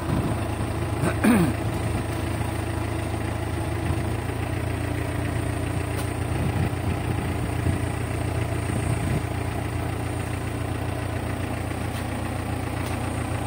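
Boom truck engine idling steadily, running the hydraulic aerial lift. A brief falling-pitched sound comes about a second in.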